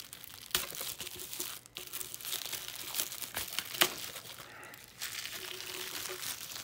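Packaging crinkling and rustling in irregular crackles as sticker sheets are handled and unwrapped.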